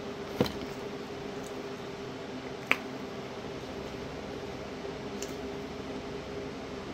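A mouthful of dry cornstarch being chewed, with two sharp clicks about two seconds apart, over a steady low hum.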